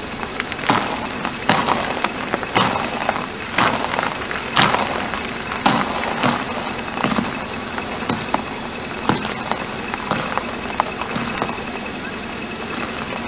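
A car tyre crushing stacks of round crackers: a series of sharp crunches, roughly one a second.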